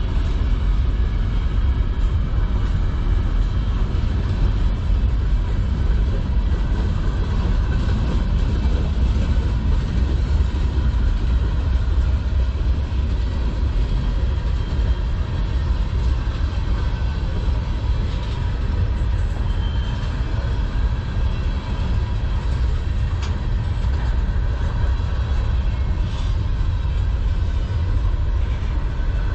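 Freight cars of a manifest train, covered hoppers and tank cars, rolling past at close range: a loud, steady low rumble of steel wheels on rail.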